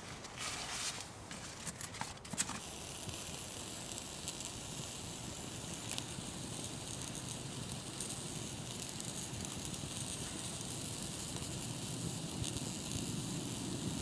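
Crinkly sleeping-bag fabric rustling for the first couple of seconds. Then a small wood fire burns in a pocket stove under a pot, with a steady hiss and scattered crackles.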